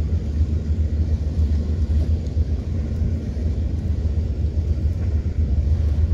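Steady low rumble on the microphone with a light hiss above it, unbroken throughout.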